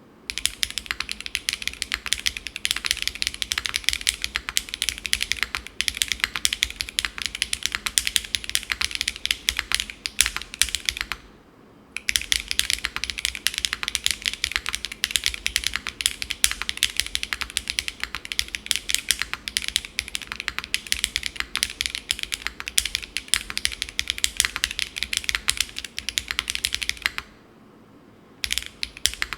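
Fast continuous typing on a custom mechanical keyboard, the Winter R2 with Keygeek Cera R2 switches and GMK Beige keycaps on an aluminium plate, tadpole-mounted with no foam dampening. It gives a dense run of crisp keystroke clacks, with a short pause about eleven seconds in and another of about a second near the end.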